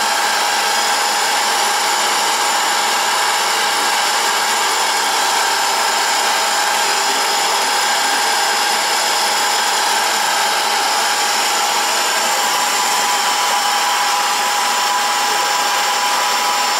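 Wells Index CNC milling machine's spindle running with its end mill cutting into a clamped piece of wood, a steady machine whine with no pauses.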